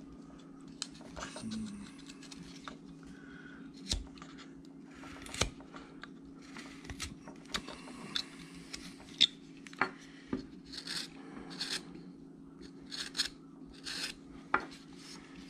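Carving knife slicing and shaving wood in short, irregular cuts while rounding a paw between the legs of a carved dog, with a few sharp knocks of blade and workpiece. A faint steady hum sits underneath.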